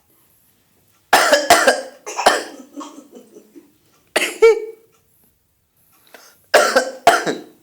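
A person coughing in three fits of short, sharp coughs: about a second in, around four seconds in, and near the end.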